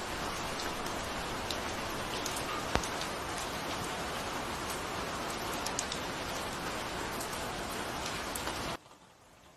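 Steady rain falling, an even hiss with scattered drop ticks and one sharp tick about three seconds in. Near the end the rain sound cuts off suddenly to a much quieter hiss.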